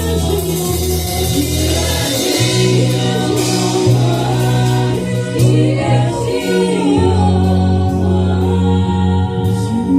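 Gospel worship music: a group of voices singing over long held low instrumental chords that change every few seconds.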